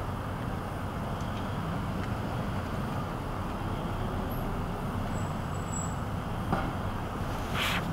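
Steady low rumble of distant city traffic, with two short sharp noises near the end.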